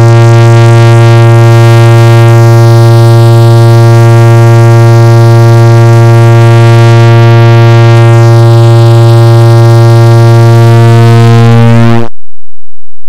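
Clock ticking sped up so far that the ticks run together into one very loud, steady low buzz with a bright edge, holding one pitch, then breaking off abruptly about twelve seconds in.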